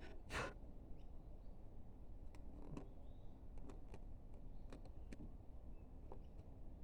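Small hand chisel making light paring cuts in wood: faint, scattered clicks and short scrapes, a little louder about half a second in.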